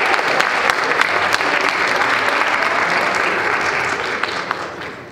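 An audience applauding, a dense patter of many hands clapping that dies away near the end.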